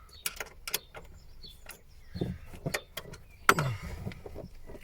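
A run of sharp clicks and light knocks, with one louder knock about three and a half seconds in: hard parts and tools being handled while fitting a subwoofer's ground connection.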